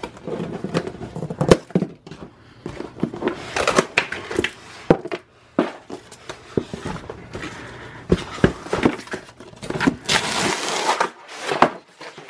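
Scissors snipping nylon webbing straps on a cardboard box, then the box being handled and turned over: a run of clicks, taps and rustling scrapes, with a longer sliding scrape of cardboard near the end.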